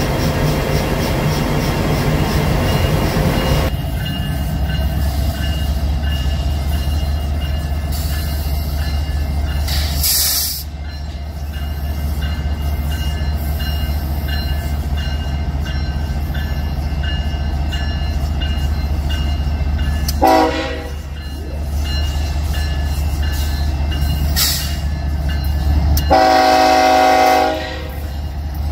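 Diesel freight locomotive approaching with a steady low engine rumble, sounding its air horn: a short blast about two-thirds of the way through, then a longer, louder blast of about a second and a half near the end.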